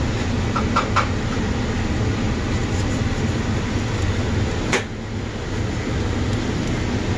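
Steady low machine hum, with a few light taps about a second in and one sharp click about two-thirds of the way through.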